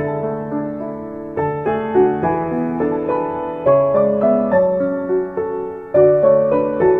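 Soft piano background music, a slow melody of held notes over sustained chords.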